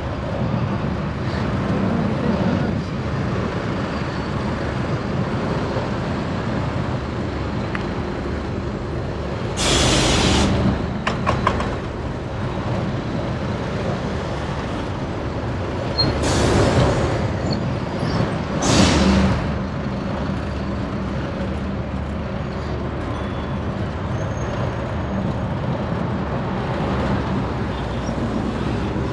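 City street traffic as a steady rumble of passing vehicles, broken by three short, loud hisses, the last two close together.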